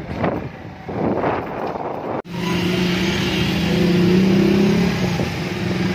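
Wind and traffic rushing past a moving vehicle, rising and falling. About two seconds in, it cuts off abruptly and gives way to a steady engine hum from motorcycles and cars on a flooded road.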